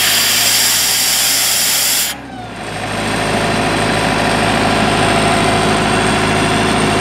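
Sullair diesel air compressor running, with a loud hiss of compressed air blowing from its open outlet ball valve that cuts off suddenly about two seconds in as the valve is shut; the diesel engine keeps running steadily.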